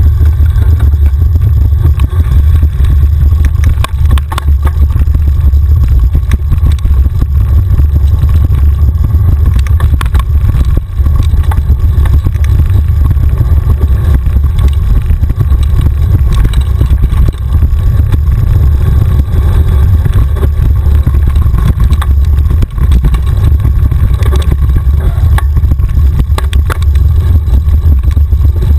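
Heavy wind rumble on a bike-mounted camera's microphone as a mountain bike descends fast over a rough dirt trail, with frequent rattles and knocks from the bike jolting over the ground.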